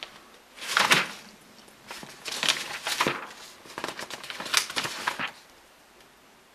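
Pages of a paper instruction manual being turned, a run of about five short papery swishes and rustles.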